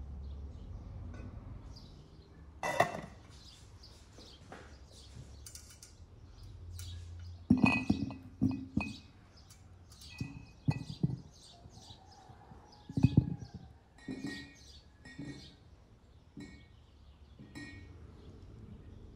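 Several knocks and clinks, the loudest a thump about thirteen seconds in, with a cluster near eight seconds and one near three seconds. Birds chirp in the background throughout.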